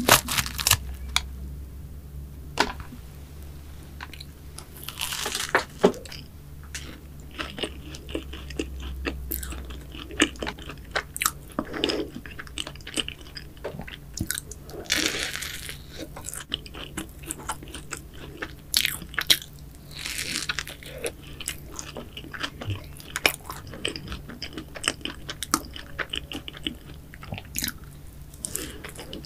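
Close-miked crunching and chewing of a cookie choux, its crisp cookie crust crackling. A sharp crack just after the start as the pastry is pulled apart, then many small crunches from bites and chewing.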